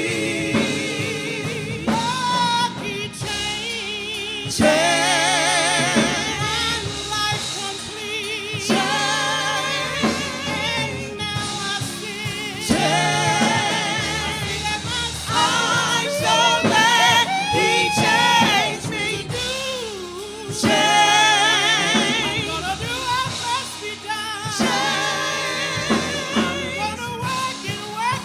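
Gospel song: voices singing with heavy vibrato and long held notes over instrumental accompaniment.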